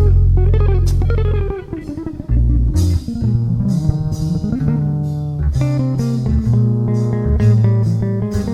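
Instrumental rock music: electric guitar with bass guitar and drums, the guitar bending notes in the first couple of seconds before the band settles into chords.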